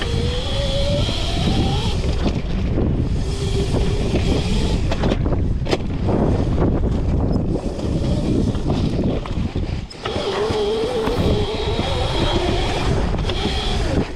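Modified Razor MX650 electric dirt bike's 11,000-watt brushless motor whining under way. The whine rises in pitch as the bike speeds up over the first couple of seconds and comes back, wavering, near the end, over heavy wind and tyre-on-dirt rumble with a few sharp knocks in the middle.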